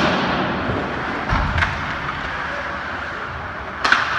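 Hockey game sounds in an echoing arena: sharp knocks from the play at the start, about a second and a half in, and near the end, over steady arena noise.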